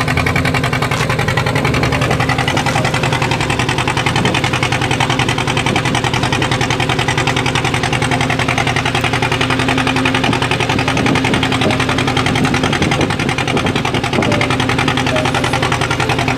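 A fishing boat's engine running steadily at a constant speed, with a fast, even chugging.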